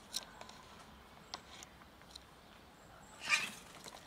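A cat hisses once, a short sharp hiss about three seconds in, as the two cats face off; a few faint clicks come before it.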